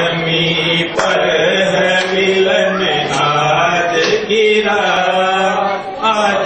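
A man singing a Hindi song into a handheld microphone, in long drawn-out notes that change pitch about every second.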